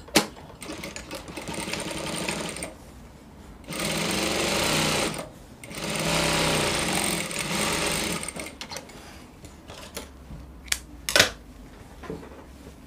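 Industrial lockstitch sewing machine running in three bursts of a few seconds each, the last two louder, as a long side seam is stitched. A couple of sharp knocks follow near the end.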